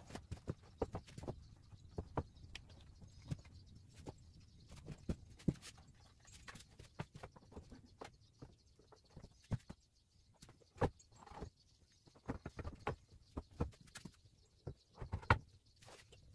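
Scattered, irregular knocks, taps and clicks of hand work on cabinet parts and tools, with a few louder knocks near the middle and toward the end.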